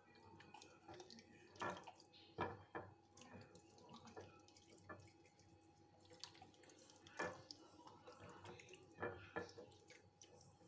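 Faint, irregular wet squelches and smacks of hands massaging an oily herb chermoula marinade into a raw split chicken, with a few louder smacks a couple of seconds in and again around seven and nine seconds, over a faint steady hum.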